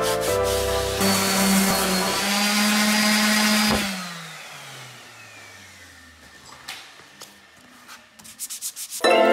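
Electric random orbital sander running on a stair skirt board, a steady hum and high whine over the hiss of sanding. It is switched off about four seconds in and winds down, falling in pitch. A few light clicks follow, and music comes in near the end.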